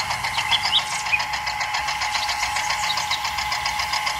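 Miniature toy tractor's engine sound running steadily while it drives, a rapid even chugging of about eight to ten beats a second.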